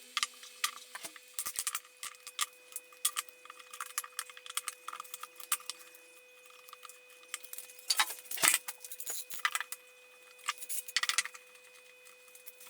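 Irregular small clicks and jingling rattles, like small hard pieces being handled, in scattered clusters with the densest bunch about eight seconds in, over a faint steady hum.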